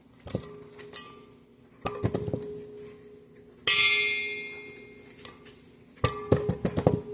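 A spoon scraping out squash seeds and knocking against a bowl: a series of sharp clinks, and one strike about three and a half seconds in that leaves the bowl ringing for over a second.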